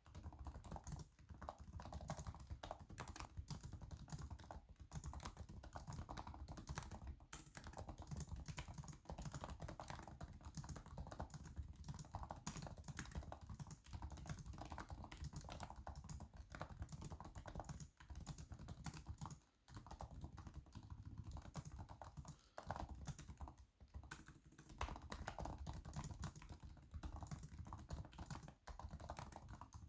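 Steady, fast typing on an MSI PS42 8RB laptop keyboard: a quick run of light key clicks, with a few short breaks around the middle.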